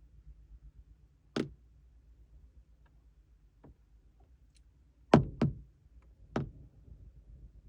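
European herring gull's bill tapping against window glass: sharp single knocks, one about a second in, a faint one midway, then a quick double tap and a last tap in the second half.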